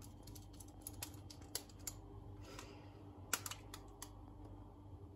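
Faint, irregular small clicks and ticks of a screwdriver and wire being worked into a wall socket's screw terminal as the live wire is fitted and clamped, with a few sharper clicks around the middle.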